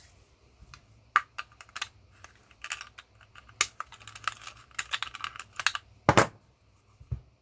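Small hand tools and metal parts clicking and tapping irregularly as a massager's cast aluminum case is taken apart by hand, with one louder knock about six seconds in.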